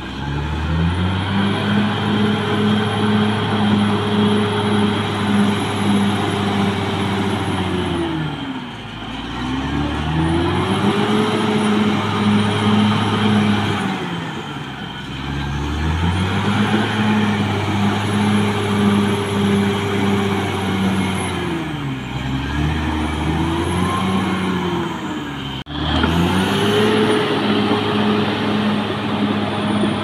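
Caterpillar D6R XL bulldozer's diesel engine running at high revs while working. The revs sag and pick back up four times, and a high whistle rises and falls along with them.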